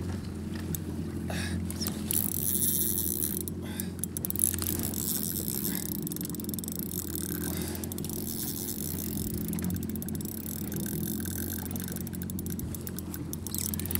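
Jet ski engine idling with a steady low hum.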